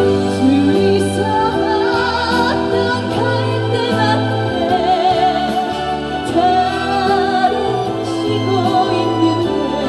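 Live slow trot ballad with band accompaniment: sustained chords under a melody line with strong vibrato.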